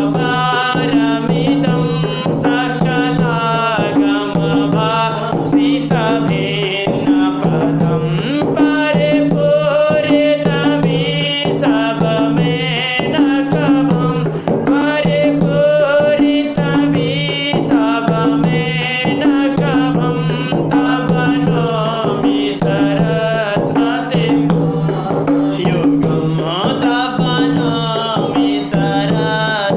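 A man singing a Hindu devotional hymn to Saraswati over a steady drone, with an evenly repeating hand-drum rhythm.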